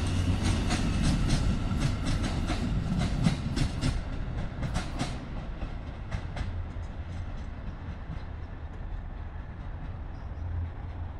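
Amtrak passenger cars rolling past as the train departs, their wheels clicking rapidly over the track with a low rumble. The clicks thin out and fade after about five seconds as the train pulls away, leaving a quieter rumble.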